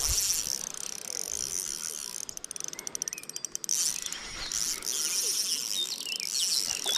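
Spinning reel being wound, a rapid run of ratchet-like clicks from about two to three and a half seconds in, over a steady high chirring of insects.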